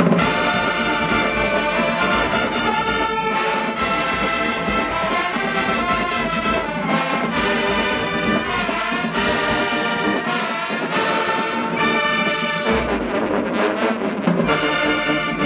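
Marching band's horn section of trumpets, trombones, mellophones, sousaphones and saxophones striking up together and playing loud, full chords.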